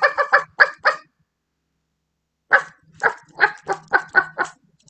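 A person imitating a dog, barking in quick short woofs: a run of about five, a pause of about a second and a half, then a longer run of about eight.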